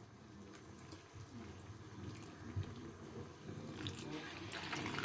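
Canned milk trickling in a thin stream into a wok of chicken stew, a faint splashing trickle that grows a little louder near the end.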